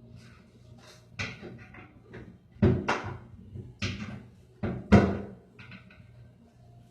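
Irregular knocks and clunks of hard parts being handled, about six in all, the loudest a close pair about three seconds in and another near five seconds.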